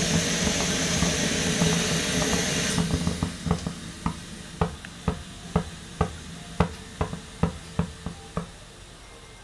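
Coleman Peak 1 Feather 400 white-gas stove burner running with a steady hiss, which drops off sharply about three seconds in as the flame is turned down. At the low flame it gives a series of sharp pops, about two a second, fading toward the end.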